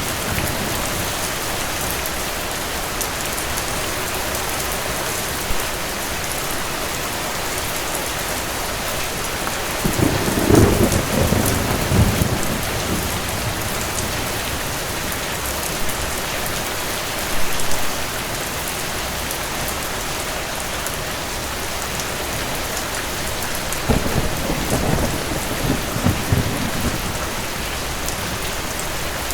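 Steady rain with distant thunder rolling twice, about ten seconds in and again near the end.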